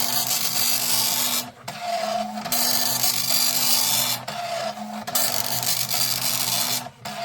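Philips NMS 1421 7-pin dot matrix printer printing, its print head chattering along each line. There is a brief break about every two and a half seconds, between one line and the next.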